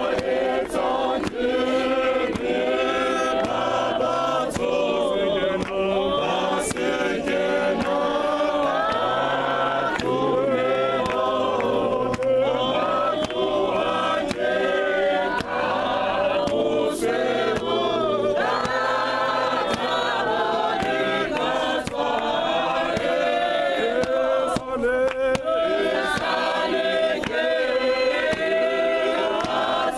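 A choir of men singing together without instruments, several voices at once, steady throughout.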